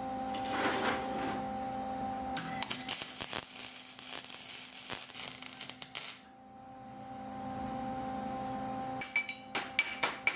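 Welding arc crackling on steel pipe. Near the end comes a run of quick ringing taps: a chipping hammer striking the fresh weld to knock the slag off.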